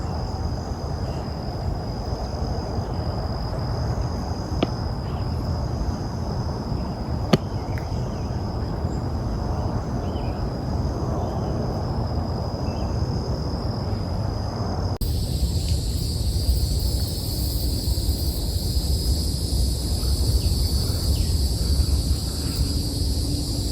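Insects trilling steadily in a high, even pitch over a low rumble of wind on the microphone. There are two sharp clicks at about 5 and 7 seconds. About two-thirds of the way through, the sound changes abruptly to a different high insect chorus.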